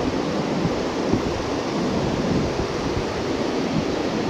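Steady, loud rush of water pouring from a dam spillway into the river pool, an even, unbroken noise.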